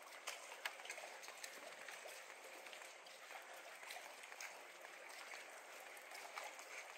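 Faint, soft, steady wash of lagoon water lapping beneath a wooden dock, with light, irregular taps of footsteps on the dock's boards, clearest in the first second or so.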